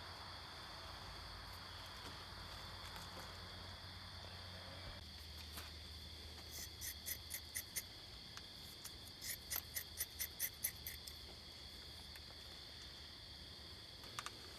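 Insects chirping: a steady high trill throughout, with two runs of rapid, louder chirps in the middle. A soft rustling noise is heard over the first few seconds.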